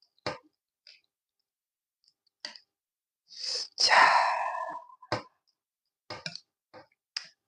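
Close-miked eating sounds: a handful of sharp clicks and taps, and one long, noisy mouth sound about three and a half seconds in that fades away.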